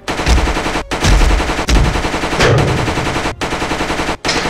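Dramatized gunfire sound effects: dense, rapid automatic-weapon fire with shots, broken by a few brief pauses.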